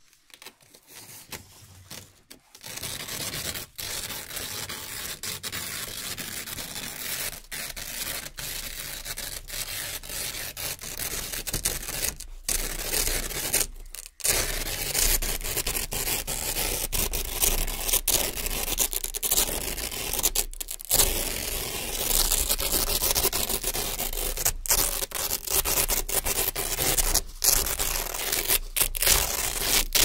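Yellow Velcro hook-and-loop strips being peeled off a hook-and-loop board: a continuous ripping rasp that starts softly, grows louder over the first few seconds, and breaks off briefly a few times as each pull ends.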